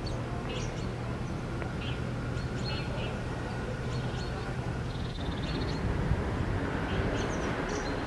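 Small birds chirping in short, high, repeated clusters over a steady low hum of outdoor background noise.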